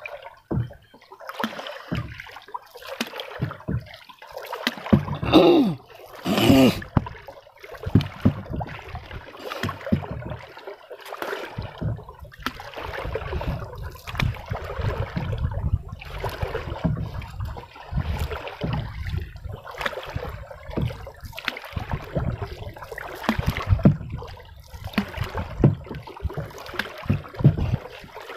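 Water splashing, trickling and gurgling around a small wooden boat paddled along a river, in irregular strokes. Two louder pitched sounds stand out about five and six and a half seconds in.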